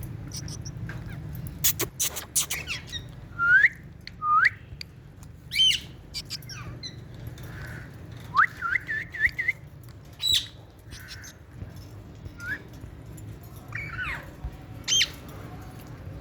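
Female Indian ringneck parakeet calling, short whistled notes and squawks, many sliding quickly upward in pitch, with a quick run of rising chirps a little past the middle. A couple of sharp clicks sound about two seconds in.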